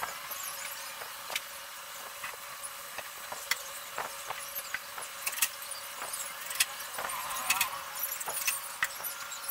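Plywood panels being handled and fitted together: scattered light knocks, taps and clatter of wood on wood and on the workbench, over a steady faint hum.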